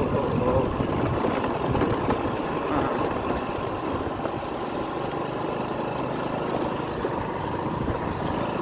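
Motor scooter engine running steadily while riding, with wind rushing over the microphone.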